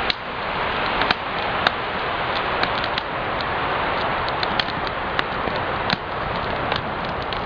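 Wood campfire crackling: a steady hiss with sharp pops scattered through it.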